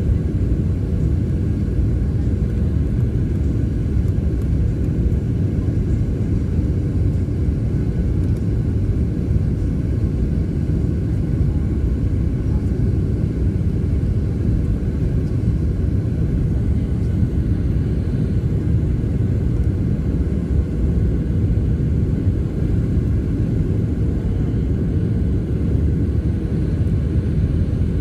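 Steady low rumble of a jet airliner's engines and rushing air, heard inside the passenger cabin on final approach, with a faint steady hum above it.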